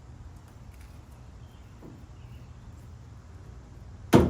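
A single loud, sharp knock near the end as the plastic tail light housing is popped into its mounting, over a steady low rumble.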